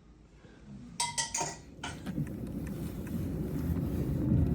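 A few clinks of teacups and dishes about a second in, then a low rumble that grows steadily louder.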